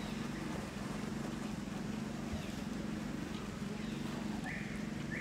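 A steady low mechanical hum, like a motor running. A short high-pitched squeak comes near the end.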